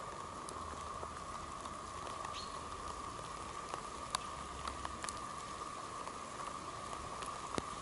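Sparse raindrops ticking on leaves and undergrowth, irregular soft drips over a steady faint hiss.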